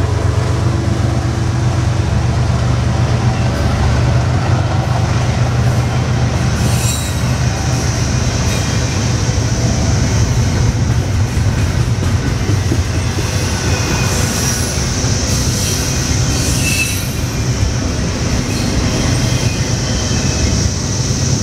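Double-stack intermodal freight train rolling past close by: steady low rumble of steel wheels on rail as container well cars go by, following a diesel locomotive at the start. High, thin wheel squeals rise out of it about a third of the way in and again for a few seconds past the middle.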